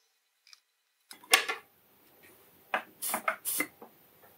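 Steel tweezers and a soldering iron being handled and set down on the tabletop: a faint click, then a run of sudden clattering knocks, loudest twice.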